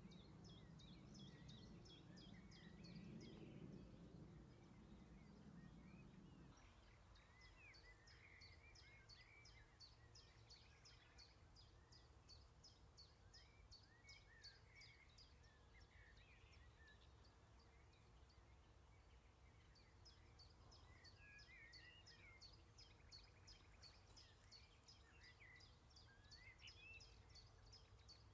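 Faint outdoor birdsong: long runs of short, high, evenly repeated notes, about three to four a second, with softer warbling phrases beneath. A low rumble underlies the first six seconds or so and then stops.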